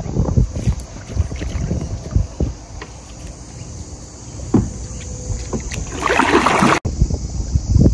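Kayak paddle strokes: the blade dipping into the water with light knocks, over a low rumble of wind on the microphone. A louder splash about six seconds in as the paddle pulls through the water, then the sound cuts off abruptly.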